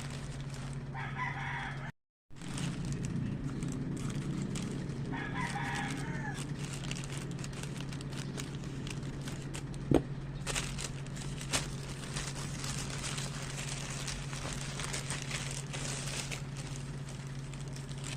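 Two short bird calls over a steady low hum. About ten seconds in comes a sharp click, followed by scattered light clicks and crackling.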